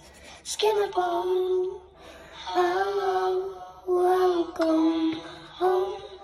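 A young girl singing a slow melody unaccompanied, in several held phrases with short breaks between them.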